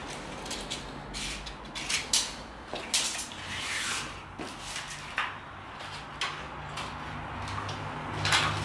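Irregular clicks, knocks and short scrapes of hard parts being handled and set down in a workshop, about a dozen in all. A low steady hum comes in near the end.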